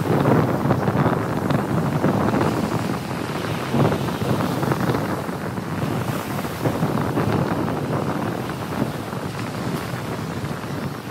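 Ocean surf breaking and washing up the sand, with wind buffeting the microphone; the wash eases a little toward the end.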